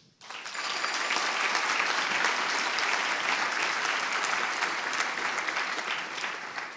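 Audience applauding: the clapping swells up within the first half second, holds steady for several seconds, and dies away near the end.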